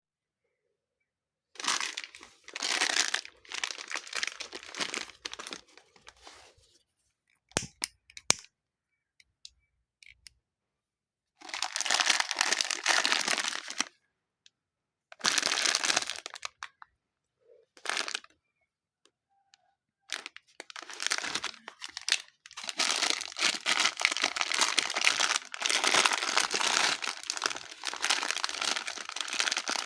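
Hands kneading, stretching and tearing old slime mixed with super light clay: crackly, crinkling squelches in several bursts with short pauses between them, then running on without a break through the last third.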